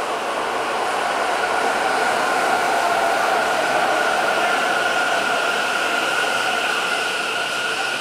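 Taichung Metro Green Line train pulling into the station and slowing: running rumble with a steady whine. It grows louder over the first few seconds, then eases toward the end.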